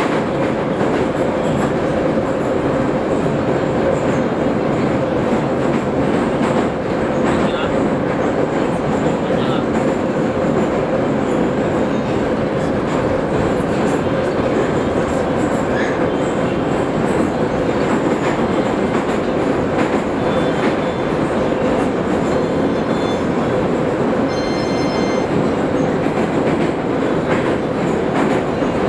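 Moscow metro train running through a tunnel, heard from inside the carriage: a loud, steady rush of wheels and motors with a constant hum. A brief high squeal rises over it near the end.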